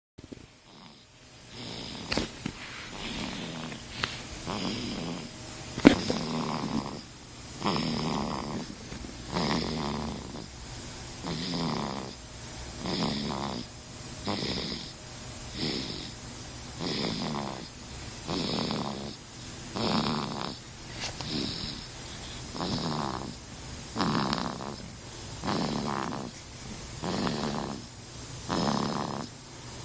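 A baby snoring in his sleep: short, even snores, about three every four seconds, with one sharp click about six seconds in.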